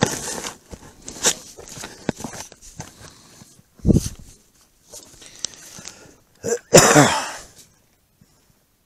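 Rustling and knocking of a body-worn camera as its wearer walks, with a loud thump about four seconds in. About seven seconds in comes a short vocal sound from a person.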